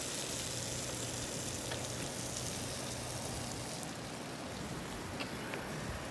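Bicycle tyres rolling through shallow floodwater on a paved path: a steady hiss of water spray, with a few faint clicks.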